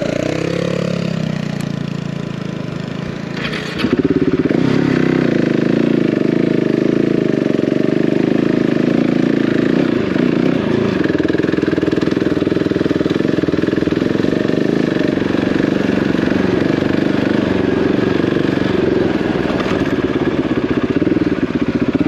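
Single-cylinder off-road motorcycle engine pulling away and getting louder, stepping up sharply about four seconds in, then running steadily under load as the bike rides a rough green lane.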